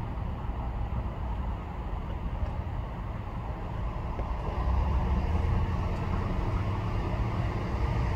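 Steady low outdoor rumble, getting louder about halfway through, when a faint steady hum joins it.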